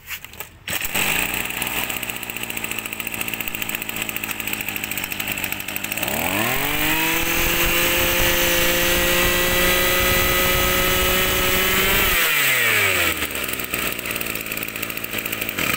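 Maruyama 23.5 cc two-stroke brush-cutter engine started, catching about a second in and idling. It is then revved up and held at high speed for about six seconds, and drops back to idle.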